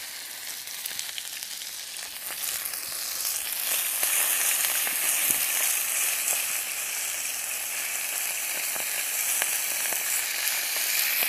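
Diced chicken sizzling in a frying pan on a camping stove as it is stirred with a wooden spatula. The sizzle grows louder a few seconds in.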